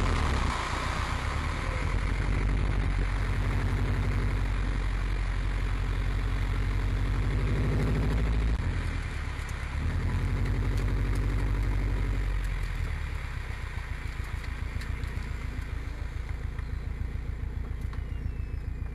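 Subaru Impreza WRX RA's turbocharged flat-four, with a stainless exhaust, running at low revs as the car rolls slowly. About two-thirds of the way through it drops to a quieter, pulsing idle.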